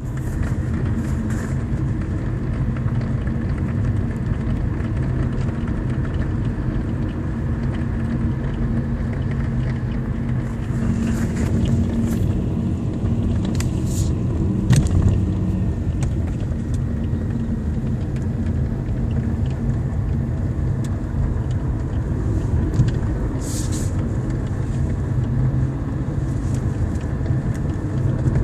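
Kia Cerato's dashboard panel knocking and rattling in short, irregular clicks over the steady low rumble of the car driving, heard inside the cabin; one louder knock comes about halfway through.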